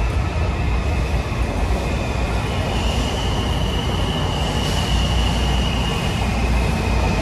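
Washington Metro subway train pulling into an underground station and slowing alongside the platform, its steady rumble echoing under the vaulted concrete ceiling. A high steady squeal rises over the rumble from about two and a half seconds in and fades near the end as the train slows.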